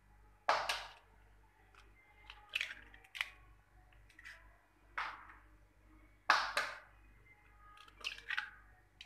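Eggs being tapped and cracked on the rim of a glass bowl, shells breaking and contents dropping in: a run of sharp cracks, loudest as quick double knocks about half a second and about six seconds in, with lighter clicks between.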